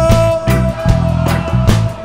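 Live rock band playing, with drums, bass guitar and electric guitar, in a ska-tinged rock groove. A single high note is held steady over the band throughout.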